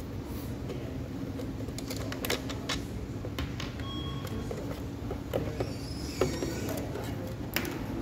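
Scattered light clicks and taps from an Allen key working on screws and from handling the 3D printer's electronics box as it is unscrewed from its rail and lifted off, over a steady low hum.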